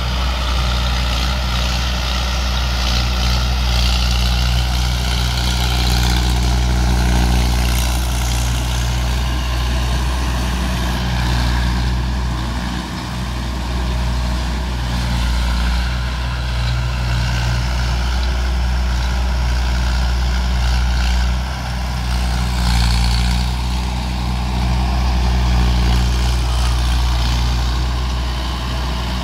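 Mahindra Arjun 555 DI tractor's diesel engine running steadily under load while its rear rotavator tills the soil, with a faint steady whine above the low engine note.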